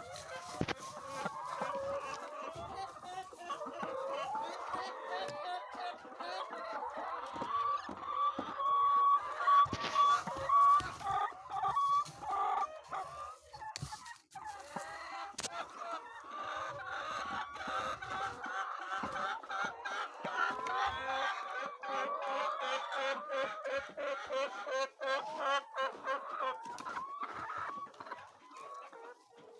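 A flock of laying hens clucking, many calls overlapping without pause, with scattered sharp clicks among them.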